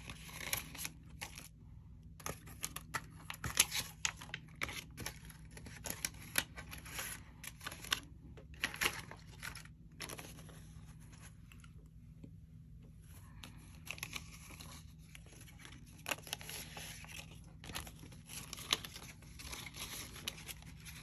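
Paper dollar bills rustling and crinkling as they are handled and counted out by hand, in irregular short strokes with a quieter stretch around the middle.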